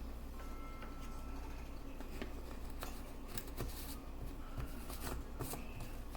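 Light clicks and rustles of kitchen items being handled while measuring spices, over a steady low hum.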